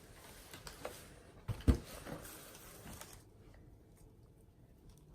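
Handling of a cardboard box and its contents: a few soft knocks and one sharper thud about a second and a half in.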